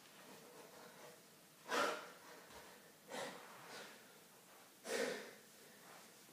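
A man breathing hard and out of breath after a bodyweight exercise: three loud, rough exhalations about a second and a half apart over a quiet room.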